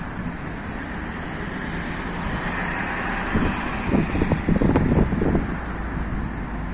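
Steady road traffic on a wide city avenue: tyre and engine noise of cars and trucks, with one vehicle passing close and its tyre hiss rising and fading about two to three seconds in. Wind buffets the microphone in gusts around four to five seconds in.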